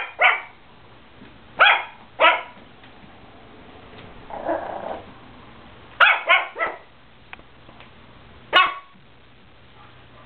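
Chihuahua barking: about seven short, high barks, some in quick runs of two or three, with a brief low growl about halfway through.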